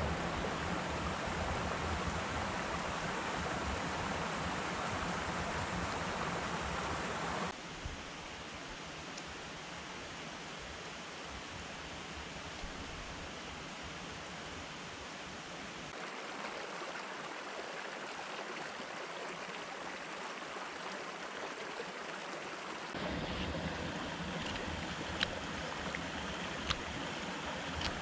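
A small woodland stream running steadily, dropping in level about a quarter of the way through and rising again near the end. A few light clicks of a carving knife cutting basswood come near the end.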